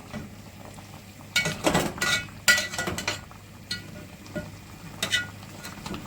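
A metal spoon clinking and scraping against a metal cooking pot as chicken pieces are stirred and turned: a cluster of ringing clinks about one and a half seconds in, then a few lighter taps.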